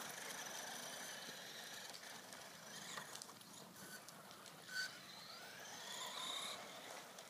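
Faint whine of an ECX Boost electric RC buggy's motor as it drives across the asphalt, rising in pitch as the car speeds up near the end. A short high chirp sounds about two thirds of the way through.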